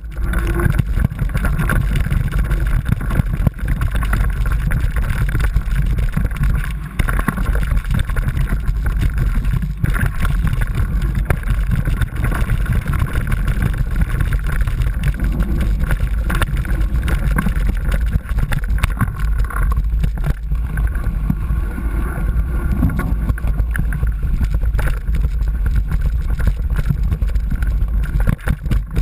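Mountain bike riding downhill over a rough, wet forest trail, heard from a handlebar-mounted camera: continuous rattling and clattering of the bike and camera mount over bumps, with wind buffeting the microphone as a loud, steady rumble.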